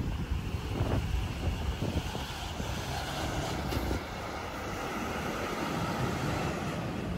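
Highway coach's diesel engine running as it pulls away and drives off. It gets a little quieter about four seconds in.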